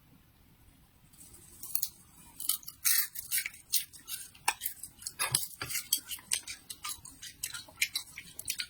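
Crisp, crunchy biting and chewing of grasshoppers close to the microphone: a run of sharp crackling crunches, a few a second, starting about a second in.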